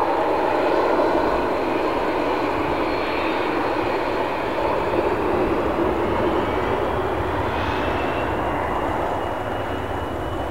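McDonnell Douglas MD-80-series jetliner's rear-mounted JT8D turbofans spooling up as it lines up and rolls away down the runway. A steady jet roar carries a thin whine that slowly rises in pitch.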